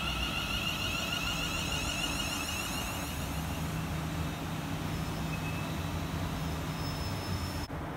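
A class 350 Desiro electric multiple unit running along the platform: a steady rumble of wheels on rail with a high whine that fades after about four seconds, leaving a low hum. It cuts off suddenly near the end.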